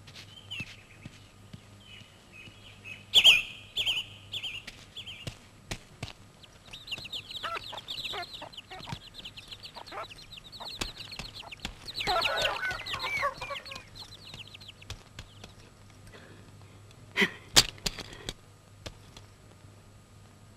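Chickens clucking, with small birds chirping. The loudest run of calls comes about twelve seconds in, and a few sharp clicks come about three seconds in and again near the end.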